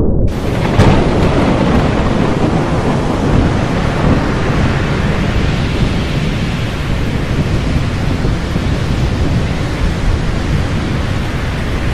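Loud, steady rumbling noise on a GoPro Hero Session's built-in microphone, starting suddenly at the opening.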